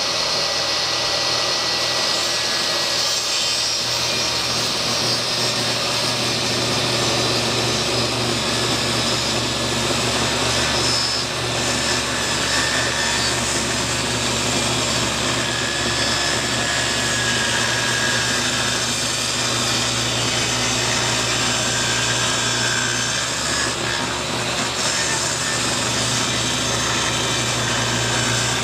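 DeWalt 10-inch portable table saw running and ripping a 2x4 lengthwise into 1x boards: a steady, loud sound of motor and blade with a low hum under it, unbroken throughout.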